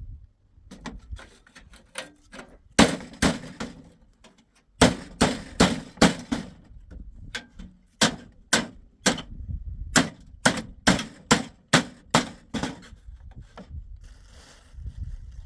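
Hammer blows on wood, a run of sharp strikes at about two to three a second with short pauses between runs, as a wooden door is being repaired.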